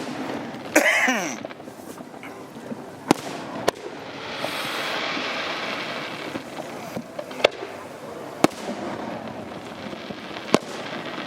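Aerial fireworks bursting: six sharp bangs a second or more apart, the loudest about a second in, with a hissing crackle in the middle of the stretch.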